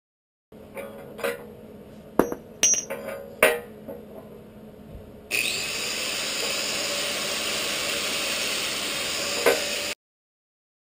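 A few sharp metal clinks and knocks on steel, then an angle grinder starts with a brief rising whine and grinds steadily and loudly on the excavator bucket's teeth, throwing sparks, before cutting off.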